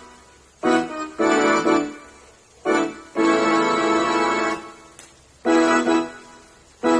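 Casio CPS7 digital keyboard playing chords in short phrases. A longer chord is held from about three seconds in, and a new chord is struck about five and a half seconds in.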